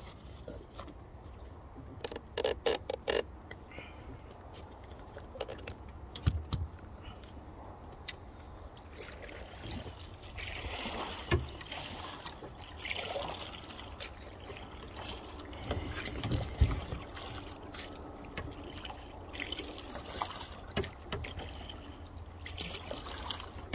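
Kayak paddle strokes in creek water: irregular splashing and dripping, with a cluster of sharp knocks about two to three seconds in and a few dull thumps against the boat.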